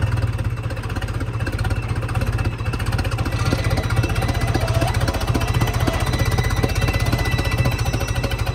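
Diesel tractor engine running close by with a steady, rapid knocking beat.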